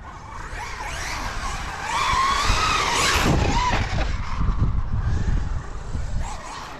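Brushless electric motor and drivetrain of a Losi Super Baja Rey 2.0 1:6 RC truck on 8S power, whining as it accelerates across grass. The whine rises to a peak about two to three seconds in, then falls away, over a low rumble.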